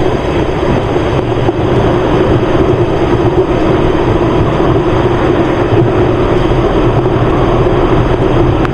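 Motorcycle riding at a steady cruise: the engine runs evenly under wind noise over the microphone, with no change in pace.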